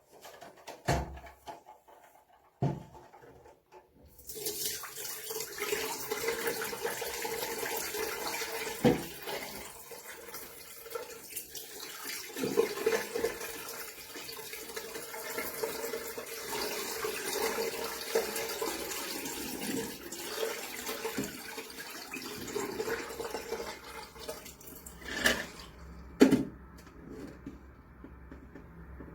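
Water running or pouring into a sink, a steady rushing that starts about four seconds in and stops near the end. A few sharp knocks come before it and more clatter follows.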